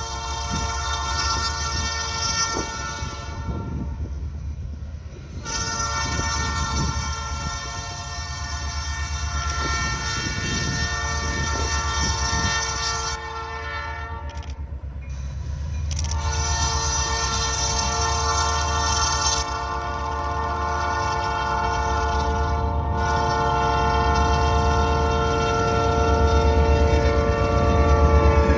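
Air horn on an approaching EMD GP38-2 diesel locomotive, sounding a long blast, then a longer one, then after a pause a final long blast held as the locomotives come alongside, the usual warning for a grade crossing. Under the horn, the diesel engines' rumble grows louder as the train nears.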